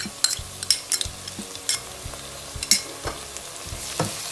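Browned onions, chillies and curry leaves frying in hot oil in a kadai with a steady sizzle, which grows louder near the end as ginger-garlic paste goes in. Scattered sharp clicks of a metal spoon tapping and scraping the paste into the pan.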